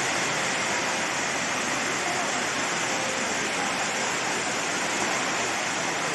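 The Rain Vortex, an indoor waterfall pouring from a glass dome roof into a basin, makes a steady, even rushing of falling water.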